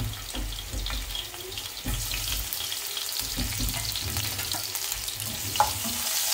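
Chopped garlic sizzling in hot oil in a frying pan, the sizzle growing louder about two seconds in. Near the end a wooden spatula starts stirring, with one sharp tap against the pan.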